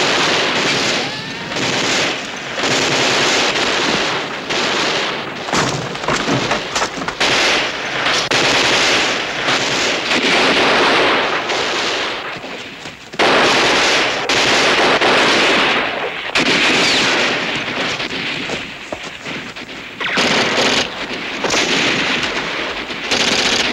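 Sustained machine-gun and small-arms fire in dense, rapid volleys. It slackens briefly and comes back loud and sudden about 13 seconds in, and again near 16 and 20 seconds.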